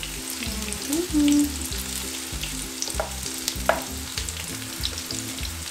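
Battered banana pieces sizzling and crackling in hot oil in a frying pan, turned with metal tongs that click sharply a few times, about three seconds in.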